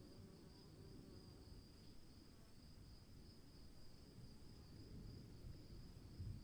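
Faint outdoor ambience of insects chirring steadily in a high, slightly pulsing tone, over a low, uneven rumble that fits a distant storm.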